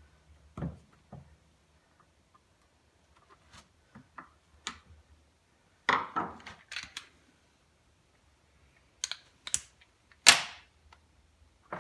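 Scattered clicks and clinks of hand tools and small metal parts being handled on a workbench while an outboard gear case is unscrewed, with a sharper knock about ten seconds in.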